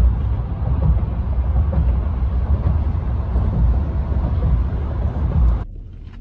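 Road noise inside a moving Chevrolet pickup's cabin: a steady low rumble of tyres, engine and wind. It cuts off abruptly about five and a half seconds in, leaving a much quieter cabin.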